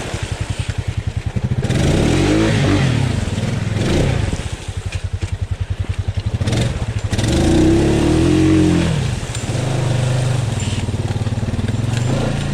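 Honda Rubicon ATV's single-cylinder engine idling with a pulsing beat and revving up and down several times, about two, four and eight seconds in, as the quad works through a deep, flooded mud hole.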